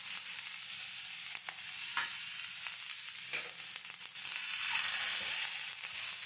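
Chopped onions sizzling in hot oil in a cast-iron kadhai, stirred with a slotted steel spatula. The spatula scrapes and taps against the iron pan a few times over the steady sizzle.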